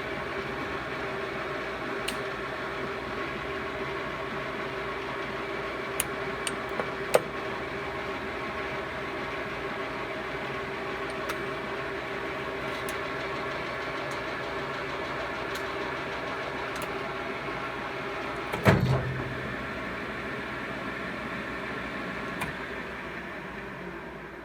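Victor 1640B engine lathe running, a steady mechanical hum and whine from its spindle drive and gearing. A few sharp clicks come about six and seven seconds in, a heavier clunk a little past the middle, and the sound starts to die away near the end.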